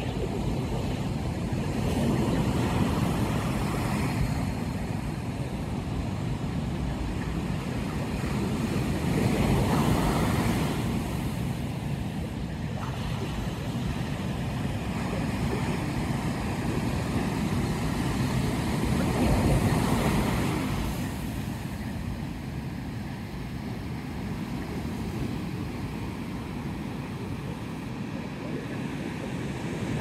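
Pacific Ocean surf breaking and washing up a sandy beach: a steady rushing roar with a deep rumble, swelling louder three times as waves break.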